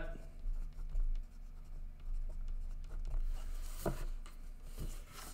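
Pen writing on watercolour paper: a run of short pen strokes as a handwritten label goes down, with a couple of light ticks in the second half.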